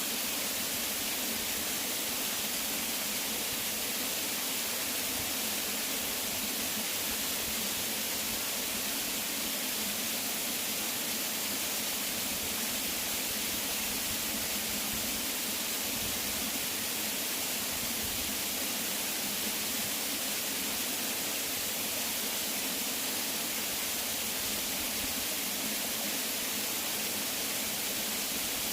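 Waterfall: falling water making a steady, unbroken hiss that is strongest in its high tones.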